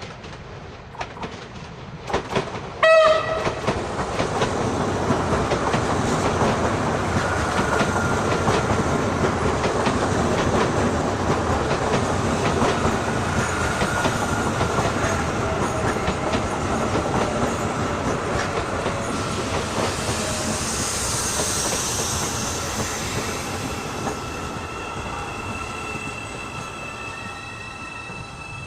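Hyundai Rotem HRCS2 electric train arriving: a short, loud horn blast about three seconds in, then the train runs past with wheels clattering over the rail joints, the noise swelling and then slowly fading. A few high, steady tones come in near the end as it slows.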